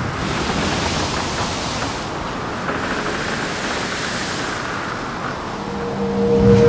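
Outdoor rushing noise of sea and wind, swelling and easing every couple of seconds. Music comes in near the end.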